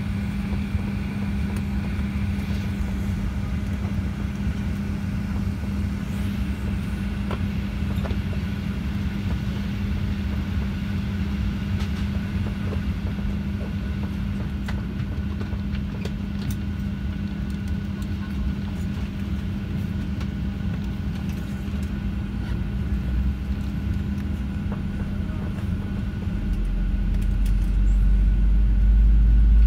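Steady drone inside a Boeing 737 cabin, with an even hum from the aircraft's air and power systems. Near the end a deep rumble swells and grows louder, typical of a jet engine starting to spool up during pushback.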